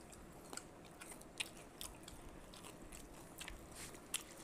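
Faint mouth sounds of people biting and chewing crisp fried snacks, with a handful of short, sharp crunches scattered through the chewing.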